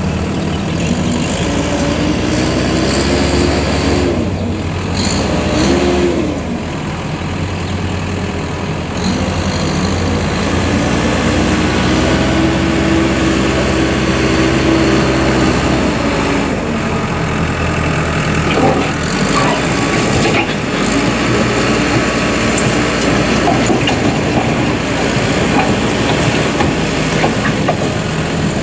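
Diesel engine of a Case 580M backhoe loader running as the machine is driven, its revs rising and falling and holding higher for several seconds in the middle. A few sharp knocks come about two-thirds of the way through.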